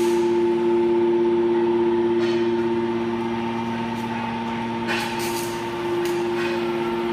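Hydraulic power unit of a 200-ton automatic scrap metal baler running, its electric motors and pump giving a steady hum with several held tones. A few short noisy bursts come through about two, five and six seconds in.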